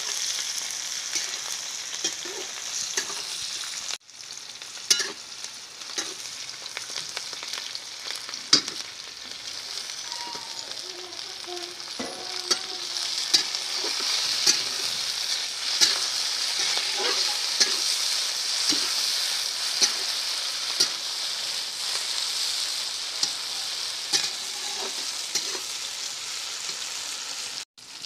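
Sliced onions, tomatoes and peppers sizzling in hot oil in a metal kadhai, stirred with a metal spatula that scrapes and clicks against the pan again and again. The sizzle grows louder about halfway through.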